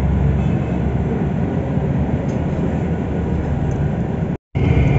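Steady engine and road rumble inside a moving bus. The sound cuts out for a split second near the end.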